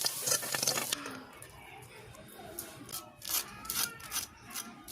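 Chicken pieces frying in hot oil with a loud sizzle that cuts off abruptly about a second in. The rest is quieter, with scattered clicks and scraping sounds and a faint voice.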